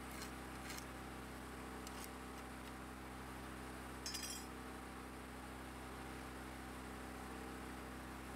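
A few faint metallic clicks, then one brighter, ringing clink about four seconds in, as metal is handled on the steel rail, over a steady background hum.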